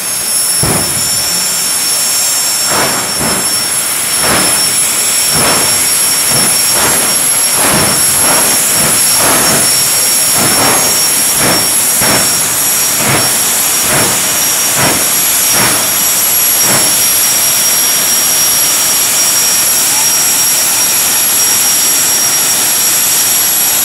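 Jet dragster's turbine running with a steady high whine, its afterburner fired in a quick series of short bursts, one or two a second. The bursts stop about two-thirds of the way in and the turbine whine carries on alone.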